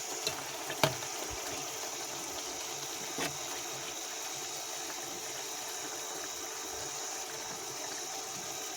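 Cicadas frying in a pan: a steady sizzle, with a few light clicks of a cooking utensil in the first few seconds.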